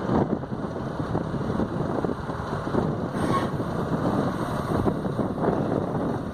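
Link-Belt 350X3 excavator's diesel engine running steadily, with wind buffeting the microphone.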